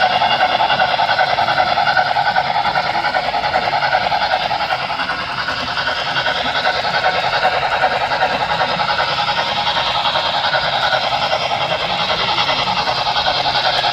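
Model train layout sound: a sound-equipped model locomotive playing a steady train running sound through its small speaker, thin with almost no bass.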